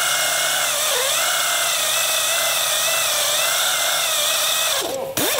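Handheld power tool with a blue abrasive hub-cleaning disc grinding rust off a wheel hub's face so that a new brake disc will sit flat: a loud, high whine that wavers and sags under load about a second in, stops briefly near the end and starts again.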